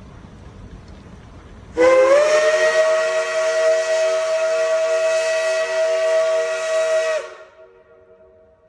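Steam locomotive whistle, the Shay geared engine Number 4, sounding one long blast of about five seconds. Several tones sound together, slide up a little as it opens, hold steady, then cut off sharply, leaving a faint echo.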